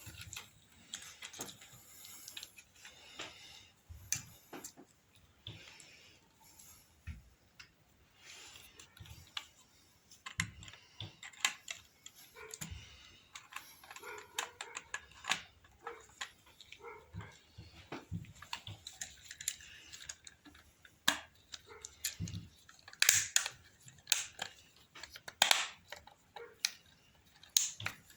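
Irregular small clicks, taps and light scrapes of hands and small tools working on a DJI Mini 2 drone's plastic parts during a repair. The clicks come louder and closer together near the end.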